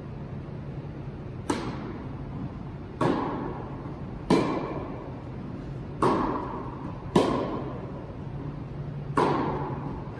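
Tennis rally: a ball struck back and forth by rackets, six sharp hits about one and a half seconds apart, each ringing out in the echo of a large indoor hall.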